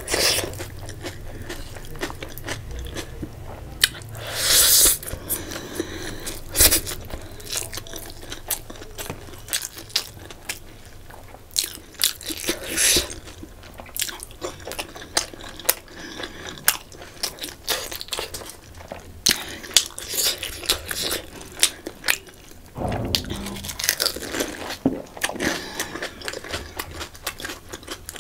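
Close-miked eating by hand: crisp panipuri shells crunching as they are bitten, and wet chewing of noodles with sharp mouth clicks. Several longer hissing sounds, and one heavier thump about 23 seconds in.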